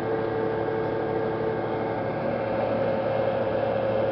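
Hydraulic winch of a pontoon bridge running steadily as it pulls the floating barge open, a constant mechanical hum with a steady low tone.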